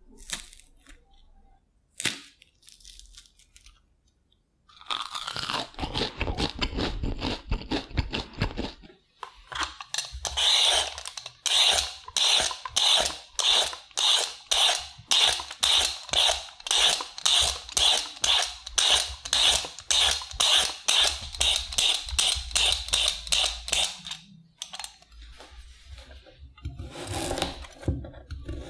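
Vegetable peeler scraping strips of skin off a raw sweet potato in quick, even strokes, about two a second. Near the end a kitchen knife cuts through the peeled potato on a wooden cutting board.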